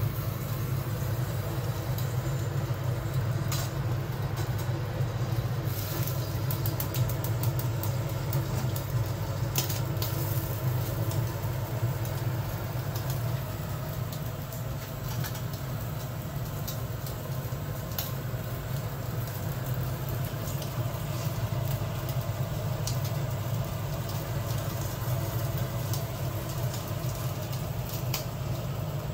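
Whole fish grilling on a wire rack over a gas stove burner: a steady low rumble with scattered sharp crackles and light clicks, including a quick run of crackles about six seconds in.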